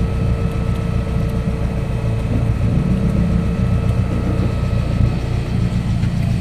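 Car engine idling steadily, an even low rumble.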